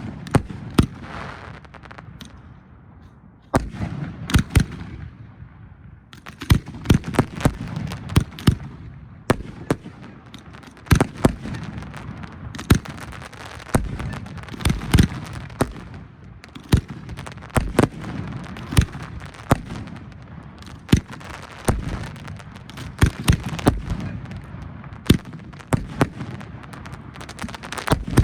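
Professional display fireworks going off in a rapid, irregular string of sharp reports over continuous crackling, with barely a pause from about a second in to the end.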